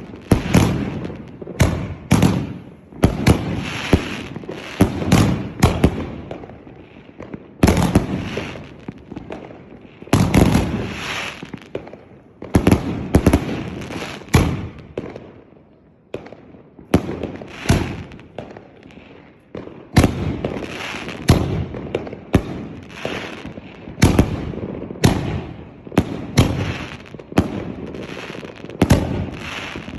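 Firework cake of mixed 1.5-, 2- and 3-inch shells firing in a rapid sequence: sharp bangs about one or two a second, each trailing off into a crackling tail, with brief lulls around the middle.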